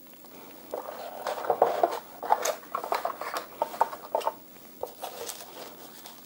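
Hands handling a graphics card's packaging: a run of rustling with quick clicks and taps, busiest in the first half, then a few scattered clicks.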